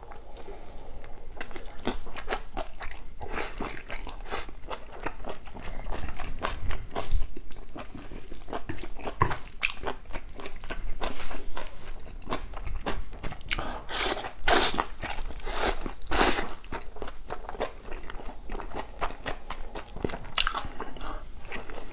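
Close-miked eating: a man chewing and biting octopus and spicy instant noodles, with steady wet mouth clicks and smacks. The loudest mouth noises come in a cluster about two-thirds of the way through.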